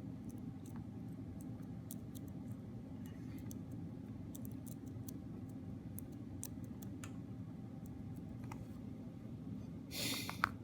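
Small, light clicks and ticks of the opened iPod's parts and tape being handled on a table, over a steady low hum. About ten seconds in comes a brief, louder rustle.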